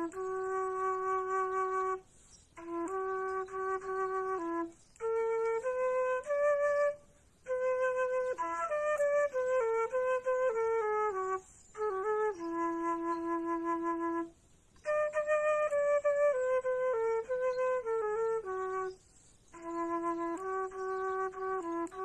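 Solo flute playing a slow melody in short phrases, mostly long held notes with a few quick stepping runs, and a brief pause for breath between phrases.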